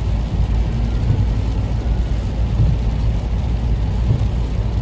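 Steady road noise inside a moving car on a wet road: a low rumble of engine and tyres with a hiss of tyres on the wet surface.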